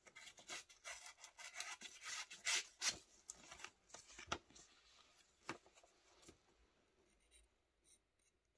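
Paper being sliced by the S35VN steel blade of a WESN Allman folding knife: a quick run of dry, rasping cuts, easing off about six seconds in.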